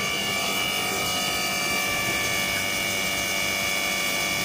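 Steady machinery noise with a constant high whine from the yacht's electric oil-change pump, running as it pumps used engine oil out of the engine into a jerry can.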